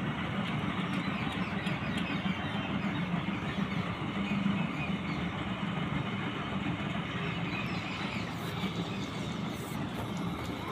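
Combine harvester running steadily as it cuts paddy, an even engine drone without breaks.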